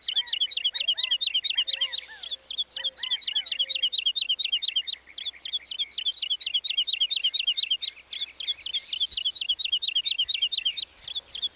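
Songbird chirping, a fast, even run of short high chirps, about five or six a second, without a break.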